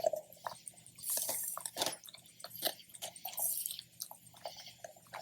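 Puppies chewing and gnawing on a raw ox tail: irregular wet crunches and clicks of teeth on meat and bone.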